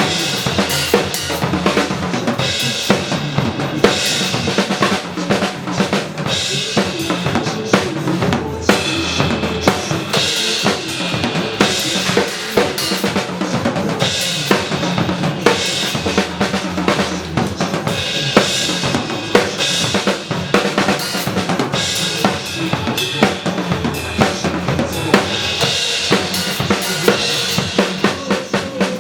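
Drum kit being played in a steady groove, with kick drum, snare, rimshots and cymbals, over a recorded backing track of a pop song.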